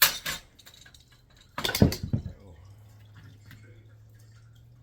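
Small metal parts and hand tools clinking and clattering on a work surface in two short bursts, about a second and a half apart, followed by a faint steady hum.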